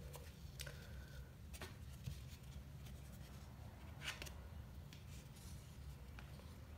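Faint scratchy rustles and a few light ticks from hand-sewing a stab-bound book: needle and thread passing through a punched sewing station, and the paper block and board covers being handled.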